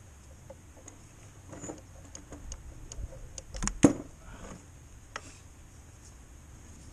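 Small metal clicks and taps of long pliers working at the fuel return hose connections on top of the diesel injectors, with one sharp, loud click a little under four seconds in.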